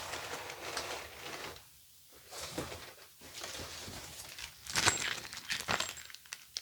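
Rustling of packaging as the stand is unboxed, with several sharp knocks and clicks from the parts being handled, the loudest about five seconds in.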